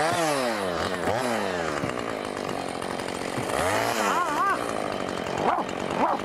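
Gas chainsaw revving, its engine pitch swooping down and back up several times. A man's warbling cry rises over it about four seconds in, with short shouts near the end.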